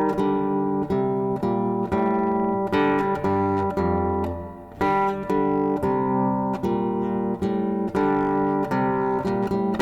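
Guitar played by plucking, sounding a run of notes and chords at an even pace, with a short drop in loudness about four and a half seconds in.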